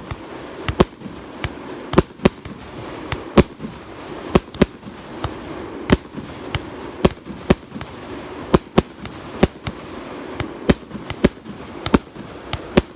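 Aerial fireworks display, with shells going off one after another in sharp bangs, roughly two a second.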